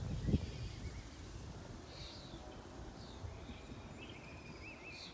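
Birds calling in open marshland. Short downward chirps are heard several times, and a wavering trill runs from a little past three seconds in, over a low rumble near the start.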